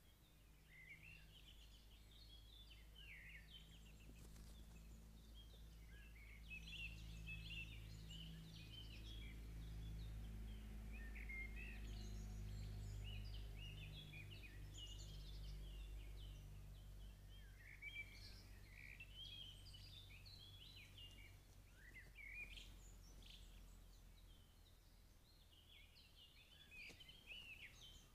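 Faint songbirds singing throughout in quick, warbling phrases, over a low distant hum that swells and then fades through the middle.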